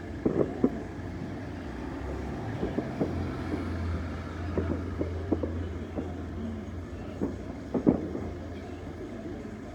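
Fireworks bursting at a distance: irregular dull bangs, the loudest about half a second in and near the end, over a steady low rumble.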